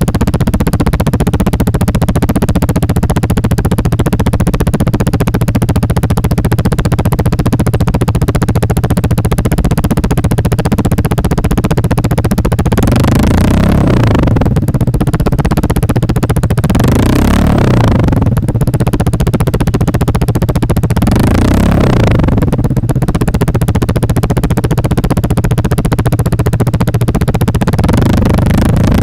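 A Vespa Sprint 150's single-cylinder scooter engine idles steadily through an SC Project GP Tech carbon slip-on exhaust. About halfway through it is revved three times, a few seconds apart, each rev rising and falling back to idle.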